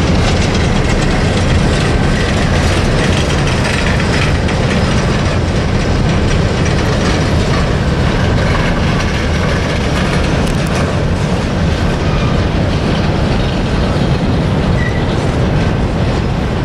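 Freight cars rolling over a steel girder bridge: a steady loud rumble with the clatter of wheels on the rail joints.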